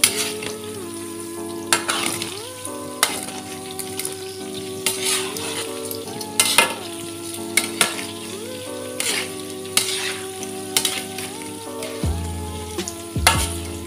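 Tofu cubes deep-frying in oil in a wok, sizzling steadily, with a metal spatula scraping and knocking against the wok every second or two as the tofu is turned.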